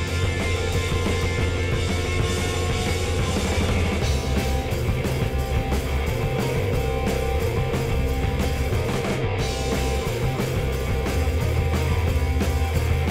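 Rock music with guitar and drums, playing steadily.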